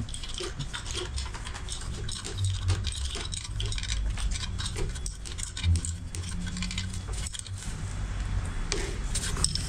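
Irregular metallic clicks and clinks of a small wrench working bolts on an engine's intake manifold, with dull knocks of hands and tool against the engine.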